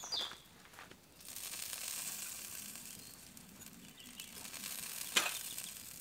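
Sausages sizzling on a gas barbecue, a soft steady hiss, with one sharp click about five seconds in.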